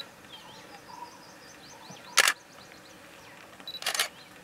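Camera shutters clicking: a short burst about two seconds in, then a rapid run of several shots near the end, over faint bird chirps.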